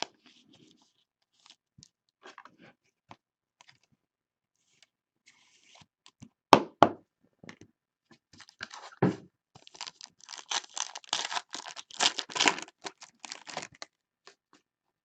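Trading cards and their packaging being handled on a table: scattered light clicks, two sharp taps about six and a half seconds in, then several seconds of dense crinkling and tearing.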